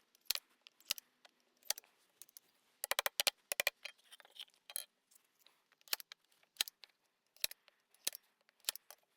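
Sharp clicks and knocks of pallet-wood pieces being handled, some single and some in quick runs of several clicks.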